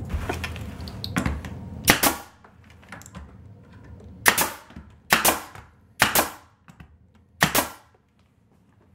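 Pneumatic nail gun firing nails through a beadboard wainscoting panel into the wall: about eight sharp shots, several in quick pairs, after a couple of seconds of rustling and knocking as the panel is pressed into place.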